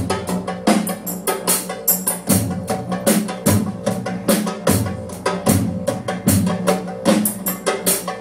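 Live band music driven by drums: a steady, fast beat with a heavy stroke a little more than once a second and quicker lighter hits between, over a sustained low note.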